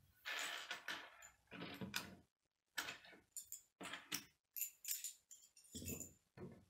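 Plastic K'nex rods and connectors rattling and clicking as they are picked up and handled on a wooden tabletop: a run of short clattering rustles and sharp clicks, with a duller knock near the end.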